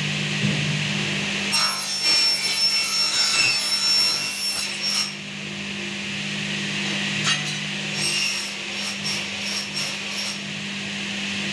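Bench cutting machine running with a steady hum and cutting through an aluminium window profile: a rasping cut with a high metallic ring. A long cut comes about a second and a half in, and a choppier run of shorter cuts comes in the second half.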